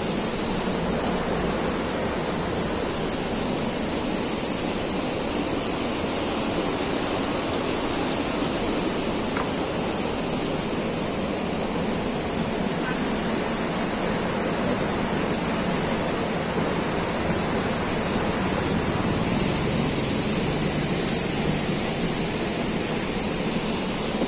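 Water rushing steadily over a dam weir, a constant even noise.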